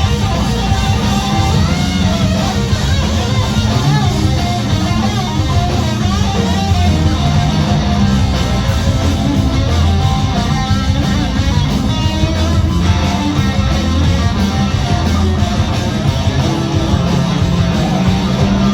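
Live rock band playing loud, with electric guitar to the fore over a steady bass and drum backing, with no vocal line picked up.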